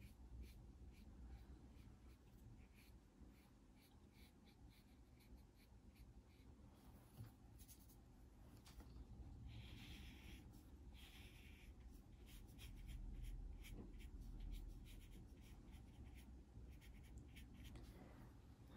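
Faint brush sounds: a watercolour brush swishing across paper and tapping in a plastic paint palette, with light ticks throughout and two short soft swishes about ten seconds in.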